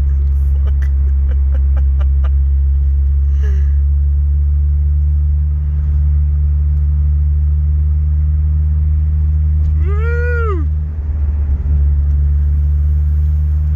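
Honda K20Z3 four-cylinder engine of a 2006 Civic Si running steadily at low cruising speed, heard from inside the cabin. About ten seconds in there is a short rising-and-falling tone, and just after it the engine drone drops away for under a second before returning.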